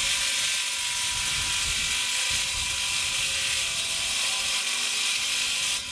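MIG welding on aluminium alloy plate: a steady arc hiss that stops just before the end.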